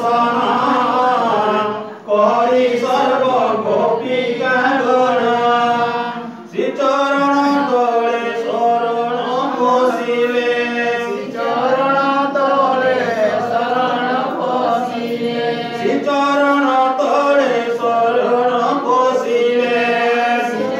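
A group of voices singing a Hindu devotional chant for Janmashtami in long, drawn-out phrases, with brief breaks between lines.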